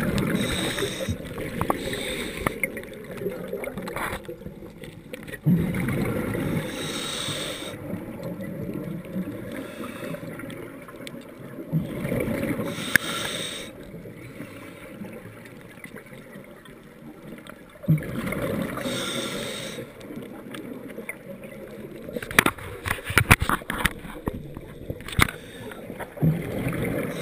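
Scuba diver breathing through a regulator underwater: exhaled bubbles gurgle and rumble in stretches of a couple of seconds every several seconds, with quieter inhalations between. A flurry of sharp clicks and knocks comes near the end.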